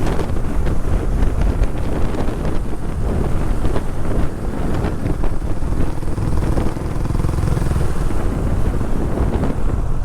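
Heavy wind buffeting the microphone of a rider moving at speed, loud and steady, with vehicle noise underneath: so noisy that the satnav voice can't be heard.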